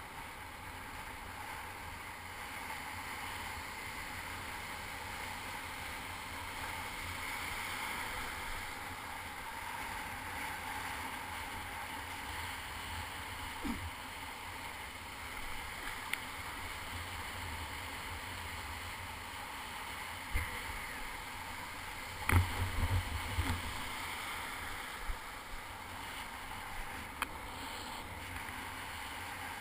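Surf wash and foaming water around a sea kayak, heard from a camera low on the boat: a steady rushing hiss. A few short knocks cut through it, the loudest a quick cluster a little past the twenty-second mark.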